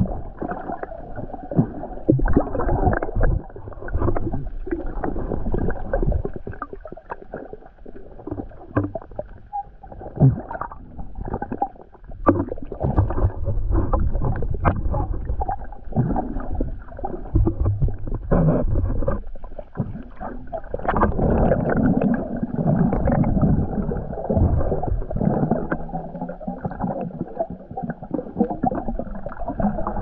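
Muffled sloshing and gurgling of sea water around a camera while swimming, with irregular knocks and splashes throughout.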